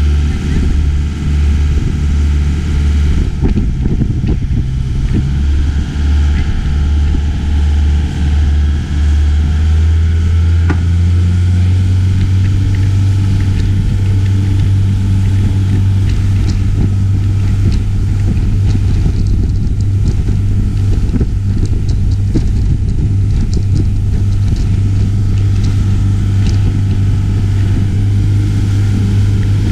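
Motorboat engine running at speed under a haze of wind and water noise. The engine note wavers and dips for the first ten seconds or so, then settles into a steady, slightly higher drone.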